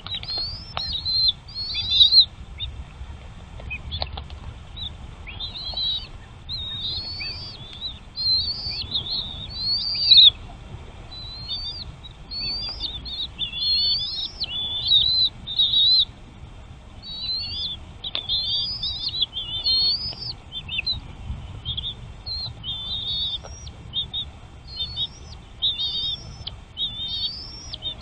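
Small songbirds chirping continuously in quick, high-pitched, rising-and-falling notes at the nest, with a few brief knocks in between.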